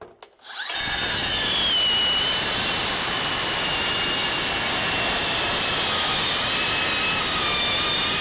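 Makita cordless brushless metal-cutting circular saw spinning up about half a second in and cutting through galvanized steel box girt: a steady, loud grinding rasp with a high whine that slowly drops in pitch. The blade is worn, which the owner calls about toast.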